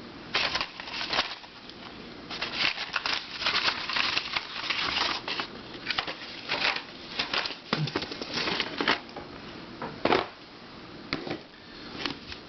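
Puzzles and their packaging being handled and moved about by hand: irregular rustling and crinkling with small clicks and knocks, a firmer knock about ten seconds in.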